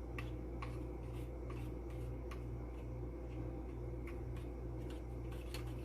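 A fork beating raw eggs in a bowl, with faint irregular clicks of the fork against the bowl a few times a second, over a steady low hum.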